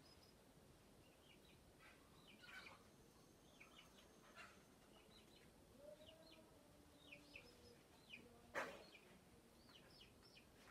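Faint bird calls: short high chirps in quick groups of two to four, and one low drawn-out call about six seconds in. A sharp click about eight and a half seconds in is the loudest sound.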